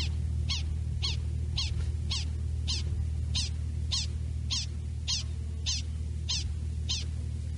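Prairie dog alarm call for a domestic dog: a run of short, high chirps, each about a tenth of a second long, repeated at a steady pace of nearly two a second over a steady low hum.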